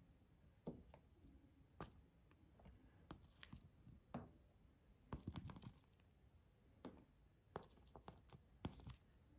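Faint handling sounds over near-silent room tone: a hand moving raw onion slices onto a ceramic plate, making scattered soft taps and clicks, with a short cluster of them about five seconds in.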